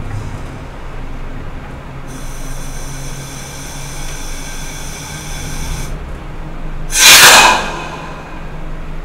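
Class 122 diesel railcar running with a steady low engine drone. A high-pitched whine of several tones comes in about two seconds in and stops about six seconds in. A loud, short hiss of air follows about seven seconds in.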